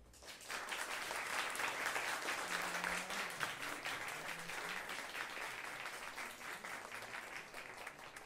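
Audience applauding, starting about half a second in and slowly tapering off.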